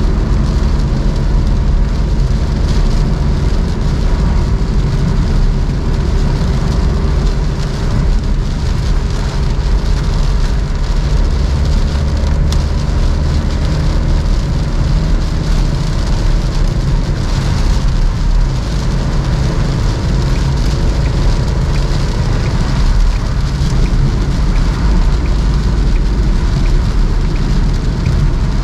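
Rain and tyre noise on a wet road, heard from inside a Suzuki Alto's cabin while driving, steady and loud throughout, with the car's small engine running underneath. A single brief click about twelve seconds in.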